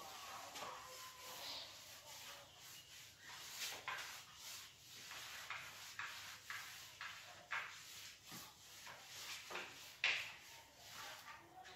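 Chalk being wiped off a blackboard with a cloth duster: a run of faint, irregular rubbing strokes, one sharper swipe about ten seconds in.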